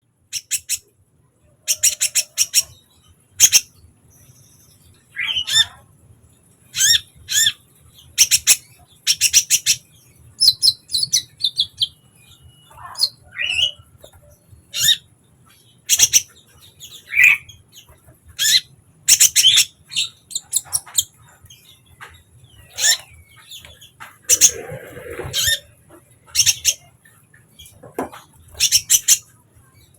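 Kolibri ninja sunbird song, used as a lure call: short bursts of rapid, very high-pitched chittering notes with brief pauses between them, and a few rising chirps mixed in.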